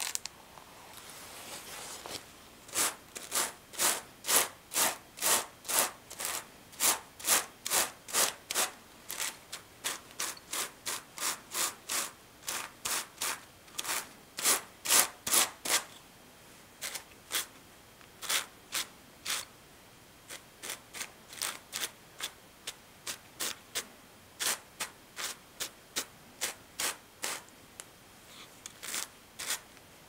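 A pair of wire-toothed hand carders is drawn across each other through wool, in a steady run of rubbing strokes about two a second, with a short break about halfway through.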